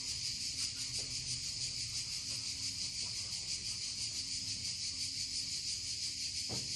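Steady, high-pitched chirring of insects, pulsing rapidly and evenly.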